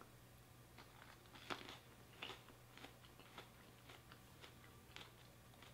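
Faint crunching of a sugar-coated fresh cranberry being chewed: a string of soft, irregular crunches over a low steady hum.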